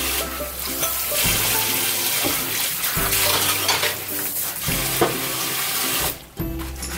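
Kitchen tap running into a stainless steel sink during hand dish-washing, with a few clinks of plates. The water shuts off about six seconds in.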